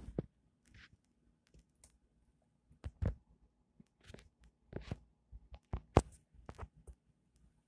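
Handling noise from a handheld phone: scattered small clicks and short rustles at irregular intervals, the sharpest about three and six seconds in.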